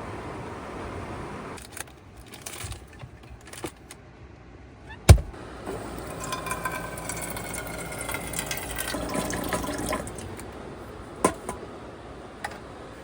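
Liquid poured into a container for about four seconds, with scattered knocks before it, one loud thump about five seconds in, and a couple of sharp clinks near the end.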